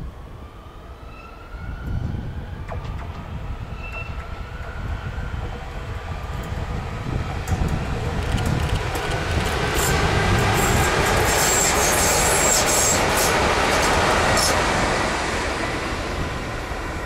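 Metrovalencia Line 1 electric train approaching and passing close by. A faint rising whine as it nears builds into the loud rush of its passing, with a run of sharp clicks, then eases off as it pulls away.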